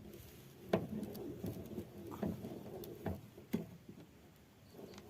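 A car jack being cranked by hand with its lever to lift the car, giving a few irregular short metallic clicks and knocks.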